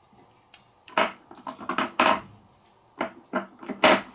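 A Tamiya DT-02 RC car chassis being handled, its hard parts giving a series of irregular sharp clicks and knocks, about ten in all.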